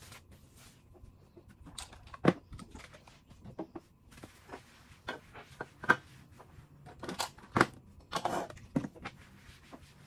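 Counter being cleaned by hand: a cloth rubbing and rustling over the surface, with bottles and makeup holders picked up and set down in irregular clicks and taps. The sharpest knocks come about two, six and seven and a half seconds in, and a longer rustle about eight seconds in.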